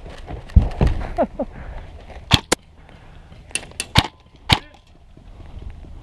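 An airsoft electric rifle, the Umbrella Armory LVOA-S, firing six sharp single shots: two close together about two and a half seconds in, then four more between three and a half and four and a half seconds in. Before them come two heavy thumps of running footsteps.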